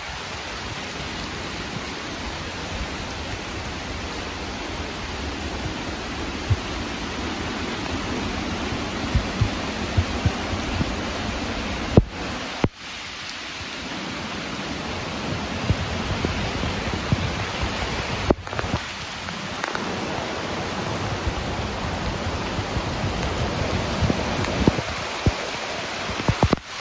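Heavy tropical-storm rain and wind: a steady hiss with gusts buffeting the microphone and scattered drops hitting it. The sound cuts out briefly twice.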